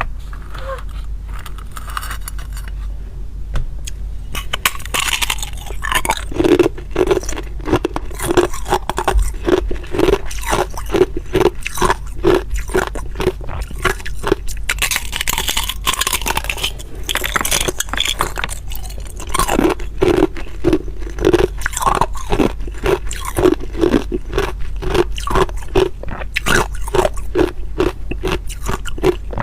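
Hard ice being bitten and chewed close to the microphone: after a few quieter seconds, a long run of loud, sharp crunches, about two or three a second.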